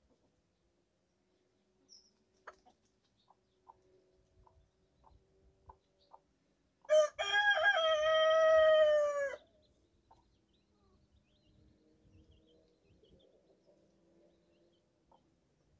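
A rooster crows once, starting about seven seconds in: a short first note, then one long call of about two seconds that slides slightly down in pitch at the end. A few faint short ticks and peeps come before it.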